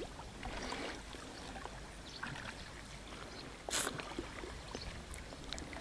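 Faint splashing of oars dipping in the water as an inflatable dinghy is paddled, with soft swells of water noise and one brief louder swish about four seconds in.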